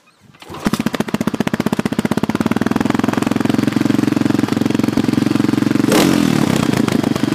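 Honda CB125TD Super Dream's small four-stroke engine running at idle with an even, rapid firing beat, just after its valve clearances were adjusted. A brief falling sweep cuts across it about six seconds in.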